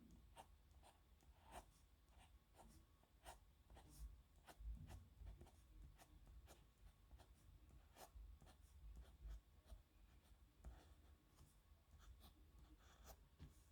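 Faint scratching of a pen nib on paper in handwriting: an irregular run of short, quick scratchy strokes.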